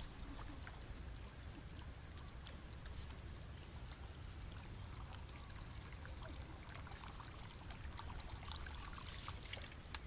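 Faint water trickling and lapping, over a steady low rumble, with scattered light clicks that grow a little busier near the end.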